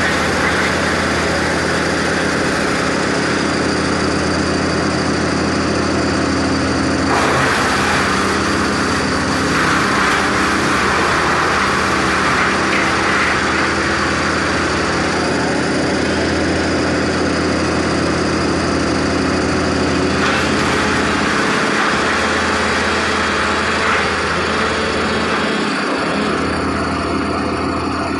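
Diesel engine of a crane truck running steadily close by, with a continuous engine drone that varies slightly in places.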